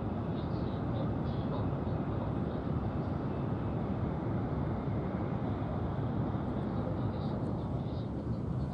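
Steady running noise inside the passenger cabin of an N700-series Kyushu Shinkansen train at speed: an even, low rush of wheels, rails and air.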